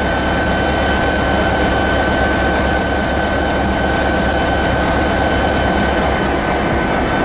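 SNCF CC 72000-class diesel locomotive (CC 72084) standing and idling, its V16 diesel engine and cooling fans running loud and steady, with a low hum and a thin high whine held on top.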